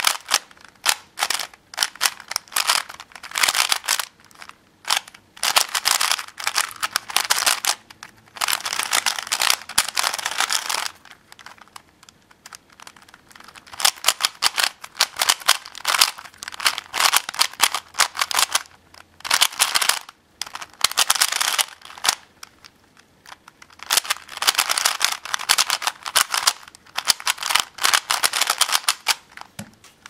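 Plastic twisty puzzle, a fused Rubik's-type cube built from two DIY 3x3 cubes, being turned fast by hand: rapid runs of clicking and clacking as the layers turn, in bursts with short pauses between.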